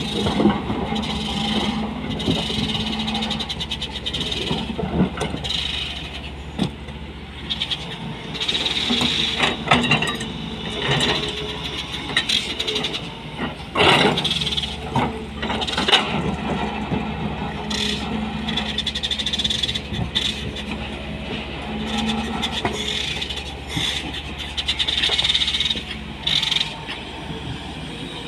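SANY SY220 crawler excavator's diesel engine running steadily while it works a rock pile, with repeated knocks and scrapes of stone against the steel bucket.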